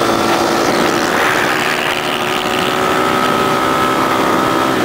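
A motor vehicle engine running at a steady speed, its pitch holding nearly level with only slight drifts.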